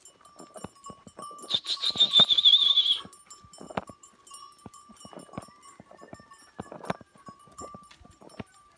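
A herd of goats walking on a dirt track, their hooves and steps making scattered short clicks and scuffs. Near the start comes a loud, high warbling whistle lasting about a second and a half.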